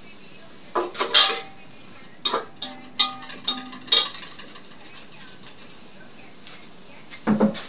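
Steel kitchen pots and utensils clattering: a few scattered knocks and clinks, some ringing briefly, plus another short knock near the end.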